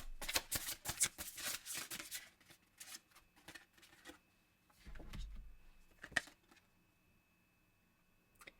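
Oracle cards being shuffled by hand: a dense, fast run of card flicks for about two and a half seconds, then a few scattered card taps and two soft knocks as cards are handled.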